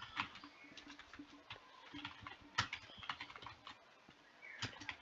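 Computer keyboard keystrokes, typed in irregular runs as a text prompt is entered.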